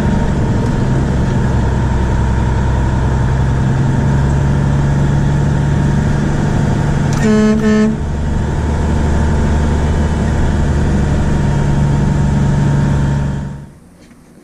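Truck engine running steadily while driving, with two short horn toots about seven seconds in. The engine sound stops abruptly near the end.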